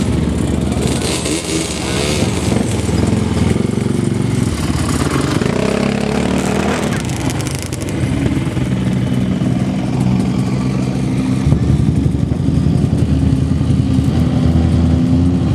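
ATV engine running under changing throttle, its pitch shifting up and down, with a rise about two-thirds of the way in. It gets louder in the last few seconds.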